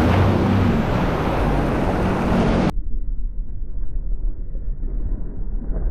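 Sea-Doo personal watercraft running at speed, its engine a steady low drone under water rushing and wind on the microphone. About two and a half seconds in the sound cuts abruptly to a duller low rumble of wind and engine.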